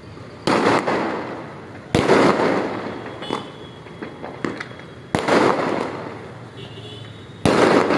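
Aerial fireworks bursting overhead: four loud bangs, each trailing away over a second or so, with smaller pops and cracks in between.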